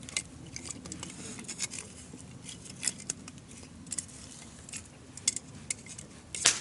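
Campfire wood crackling and snapping in irregular clicks, with a louder snap near the end.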